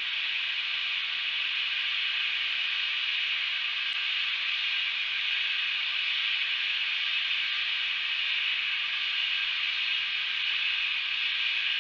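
Steady, even hiss with no change in level and nothing standing out over it.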